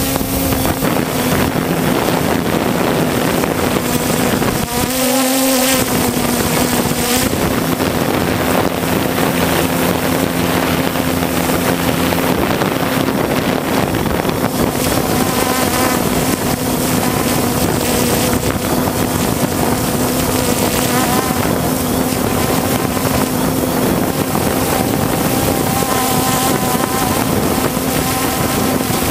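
3DR Solo quadcopter's motors and propellers buzzing steadily, picked up by the camera riding on the drone, with wind rushing over the microphone. The pitch of the buzz shifts a little a few times as the drone adjusts its flight.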